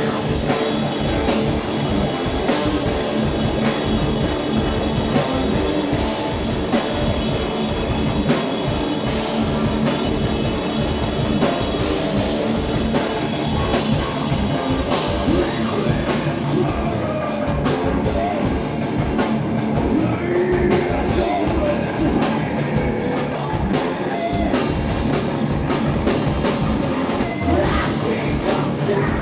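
Live rock band playing loudly on electric guitar, bass and drum kit. From about halfway through, the drums keep up a fast, even run of hits.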